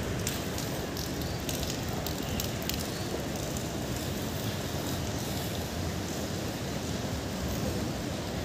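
Steady hiss of rain falling, with scattered faint ticks in the first few seconds.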